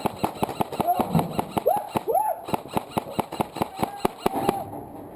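Airsoft guns firing a rapid, irregular stream of sharp shots as suppressing fire, with shots thinning out near the end.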